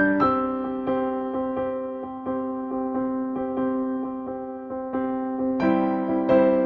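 Background music played on a keyboard piano: single notes struck one after another over held chords, growing fuller and louder near the end.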